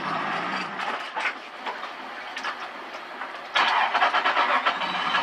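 Turbocharged 2JZ inline-six drift car heard from inside the cabin, mostly off throttle with a rapid rattling clatter, then a loud rush of noise about three and a half seconds in.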